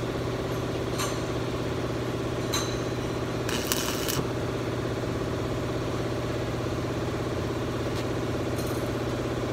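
Stick welder striking a short arc on a broken axle shaft: a brief sizzle of under a second about three and a half seconds in, over a steady low machine hum, with a few light clicks of the electrode holder and metal being handled.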